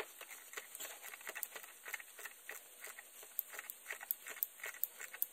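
A ratchet clicking faintly in short, uneven runs, a few clicks a second, as a new oil pressure sensor on a 5.3 V8 is threaded in with a socket and extension.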